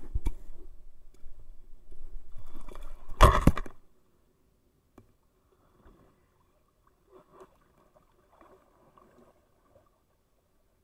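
A jet surfboard's hull bumping and scraping against a stream bank with water sloshing around it, with one loud knock about three seconds in. After about four seconds only a few faint taps are left.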